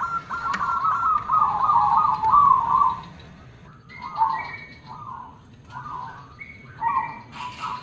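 Zebra dove (perkutut) cooing: a loud run of quick, stuttering coo notes for about the first three seconds, then fainter, scattered coos with a few higher chirps.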